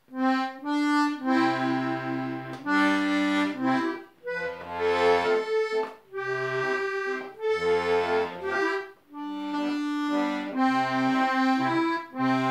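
A C/C♯ melodeon (two-row button accordion) playing a simple tune: a melody over bass and chord notes, in phrases with short breaks between them. It still has its old reeds, valves and wax, so it sounds quite nice but not great.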